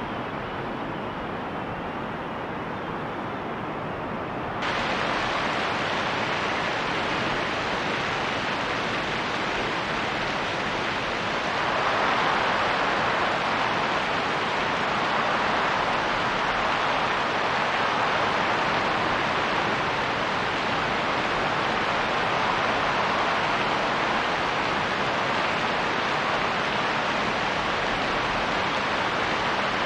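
Steady rain and wind noise. About four and a half seconds in it turns abruptly louder and hissier, and around twelve seconds in it swells louder again.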